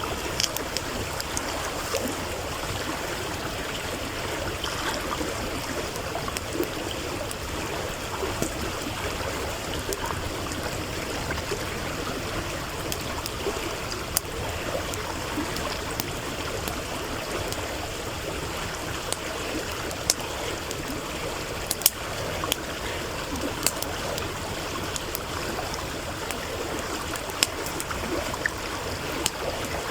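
A stream running with a steady rush and gurgle, with a wood campfire crackling over it in sharp, scattered pops, more of them in the second half.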